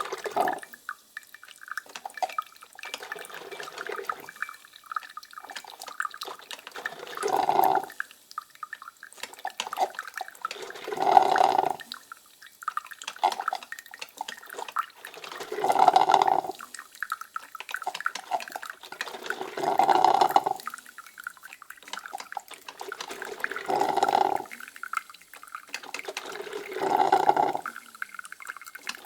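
Coffee brewing machine gurgling and sputtering as it brews, with a louder gurgling surge about every four seconds and softer dripping and crackling in between.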